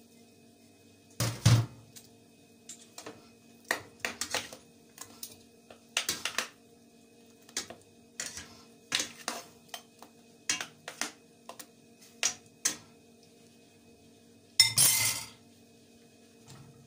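Metal spoon stirring thick, soaked dried molokhia in a stainless steel pot, knocking and scraping against the pot's side in irregular clinks, with a louder knock about a second in and a longer clatter near the end.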